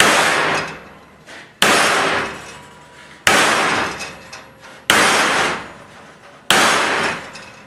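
Hammer striking a steel T-joint weld coupon tacked to a steel workbench: five hard blows about a second and a half apart, each ringing out afterwards. The blows are breaking an air-cooled 6011 fillet weld apart to test its strength.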